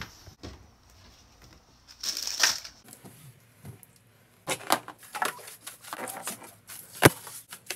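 Bristle brush sweeping crumbs into a plastic dustpan: a run of short, quick brushing strokes in the second half, with one sharp knock near the end. A brief rustle about two seconds in.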